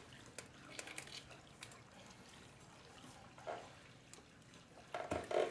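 Faint clicking and wet rubbing of a tire iron prying a lubricated tire bead over a motorcycle rim, with louder strokes about three and a half seconds in and near the end.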